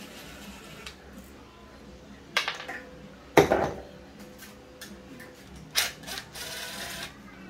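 Clinks and clatter of metal parts being handled at a bench vise, a caster wheel on a square metal tube and a cordless drill, with a loud metallic knock about three and a half seconds in and a short scraping rub near the end.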